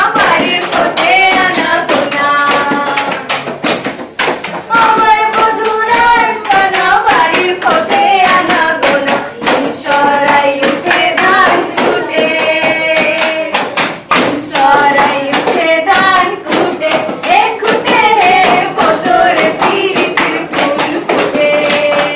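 Two young women singing a song together without instruments, with a quick beat tapped out by hand.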